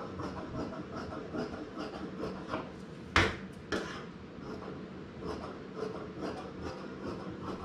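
Fabric shears cutting along white cloth on a wooden table, a run of repeated rasping snips of the blades. A sharp knock about three seconds in, with a smaller one just after.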